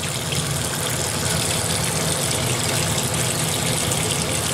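Bathroom sink tap left running: a steady rush of water with a low hum under it.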